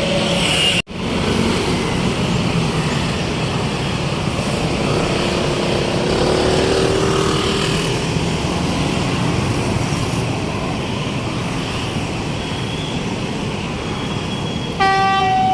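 Steady road traffic and bus engine noise, with a brief dropout about a second in. Near the end a tour bus's multi-tone 'telolet basuri' musical horn starts up, stepping from note to note.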